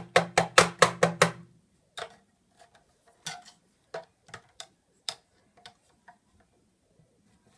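Flat-blade screwdriver clicking and scraping against the metal housing of a vacuum cleaner motor unit while prising a part off: a quick run of about seven sharp clicks with a brief humming ring in the first second and a half, then scattered lighter clicks and taps.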